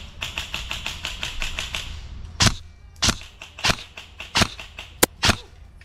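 Airsoft gunfire: a rifle firing fully automatic, a rapid rattle of about ten shots a second for about two seconds, then six louder single cracks, the last two close together.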